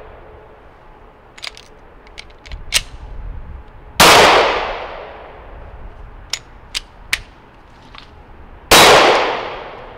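Two 9mm shots from a nickel-boron coated Glock 19, about four seconds in and near the end, each with a long echoing tail. Between them come sharp metallic clicks and clacks of the pistol's action being worked. The pistol is being fired limp-wristed with low-powered 115-grain Wolf ammunition, which induces feeding failures.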